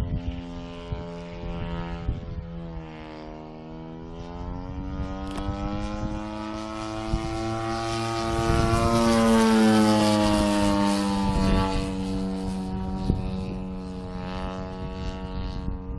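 Engine and propeller of a 35%-scale GoldWing Sbach radio-controlled aerobatic plane buzzing in flight. The pitch dips a few seconds in, then climbs as the plane makes a close pass, loudest about two-thirds of the way through, and drops again as it goes past and away.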